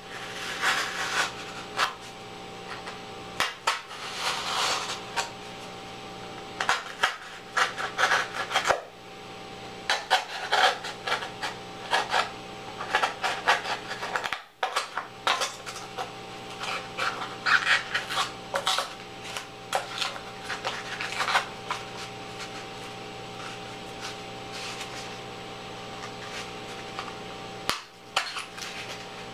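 Craft knife cutting through foam board: scratchy scraping strokes in short runs, with brief pauses between them.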